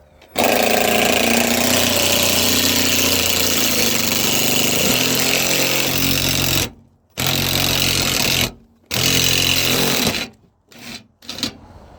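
Power driver spinning out a 10 mm bolt. It runs in three bursts: one long run of about six seconds, then two shorter runs of about a second and a half each.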